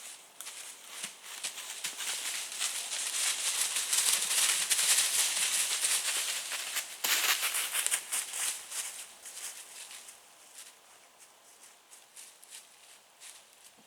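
Dry leaves crackling and rustling under a whitetail deer moving close by. The rustling builds over a couple of seconds, is loudest for a few seconds, then fades away.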